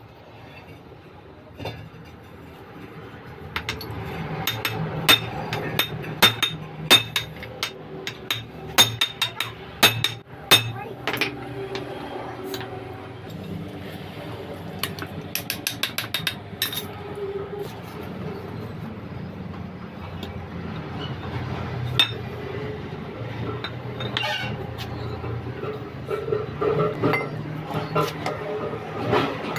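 Sharp metallic clinks and taps of tools on metal, some in quick runs of several strikes, while a propeller shaft's cross (universal joint) is being worked on.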